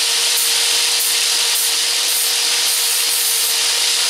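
Angle grinder grinding down fresh weld beads on a metal moped gas tank, running steadily with a constant motor whine under the grinding noise.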